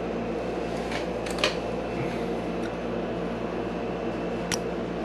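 Steady low motor hum of a room appliance running, with a few light clicks from handling the fishing line and a pair of small scissors.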